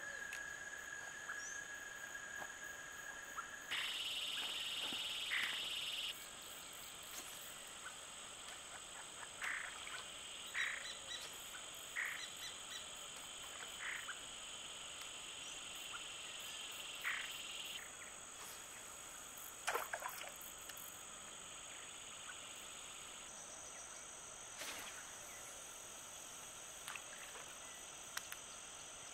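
A creek-side chorus: insects buzz steadily in high tones while frogs give short croaking calls every second or few. The background changes abruptly several times.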